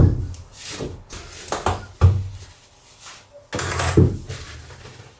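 A few dull thumps and knocks on wooden boards, irregularly spaced, with rustling between them: handling and footfall noises on a wooden boat's cabin floor.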